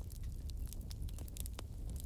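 Wood fire crackling: irregular sharp pops and snaps over a low, steady rumble of burning logs.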